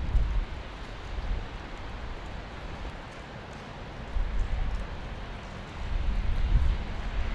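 Steady hiss of rain with gusts of wind buffeting the microphone, the low rumble swelling about four seconds in and again near the end.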